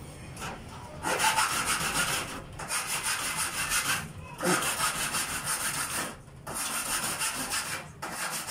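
Hand saw cutting with long, even back-and-forth strokes, five strokes in a row starting about a second in.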